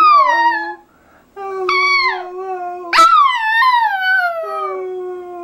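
Pet dog howling in answer to its owner's coaxing: three drawn-out calls, each starting high and sliding down in pitch, the last one the longest.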